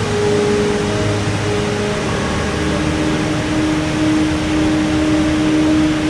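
A waterfall's white water rushing steadily down rock ledges, a loud unbroken roar of water noise. Background music of long held notes plays over it.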